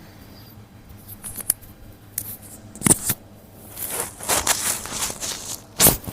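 Rustling and handling noises from hands-on body treatment, with two sharp thumps, one about three seconds in and a louder one near the end.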